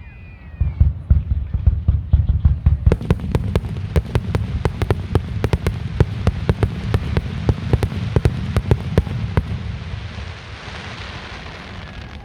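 Aerial fireworks going off: a dense, rapid run of sharp bangs, several a second, over a continuous low rumble, giving way near the end to a hissing crackle.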